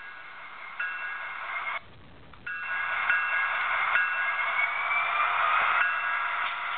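Onboard sound decoder of an HO scale Union Pacific SD70ACe model locomotive playing locomotive sounds through its small speaker: several steady tones over a hiss start about a second in, cut out briefly, then resume, with a slowly rising whine in the middle.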